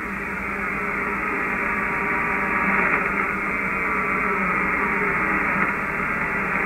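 Amateur radio receiver audio on the 630-metre band (474.2 kHz), a steady buzz and hiss of interference noise with faint tones sliding in pitch through it. The interference comes from the power supply of a fiber-optic internet terminal that is not properly grounded.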